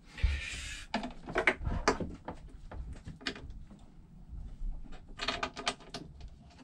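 Heavy battery cables and metal terminal lugs being handled and fitted onto battery posts: a brief rustle, then a series of light clicks and knocks, with a quick cluster of clicks near the end.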